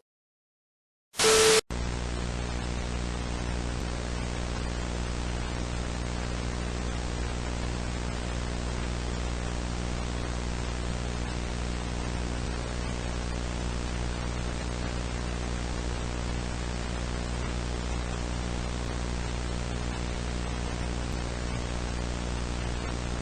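Steady static hiss with a low electrical hum buzzing under it, like a dead broadcast channel. About a second in, a brief loud burst with a tone in it cuts off abruptly, and the static and hum start right after it.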